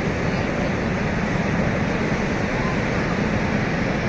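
Steady rushing of water pouring over Niagara Falls, an even noise without breaks.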